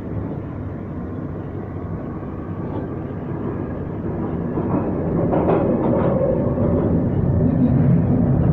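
A London Underground 2009 Stock train heard from inside the carriage as it pulls out of a station and gathers speed. The running rumble of wheels on rail and the motors grows steadily louder, with a few knocks about five seconds in.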